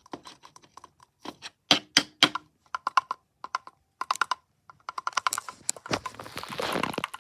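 Quick, irregular clusters of sharp taps and clicks on Funko Pop packaging, handled for ASMR. Toward the end they thicken into a denser rustling and crinkling.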